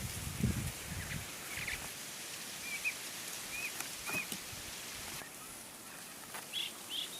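Small birds chirping: a handful of short, separate calls over a steady hiss, with a low rumble in the first second or so.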